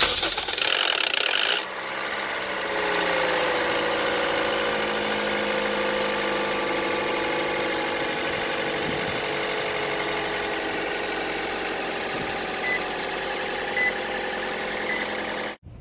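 Toyota 1NZ-FE four-cylinder engine starting, with a loud harsh noise for about the first second and a half, then idling steadily as its pitch settles slightly lower. The start-up rattle comes from a slack timing chain whose tensioner has lost oil pressure. The sound stops suddenly near the end.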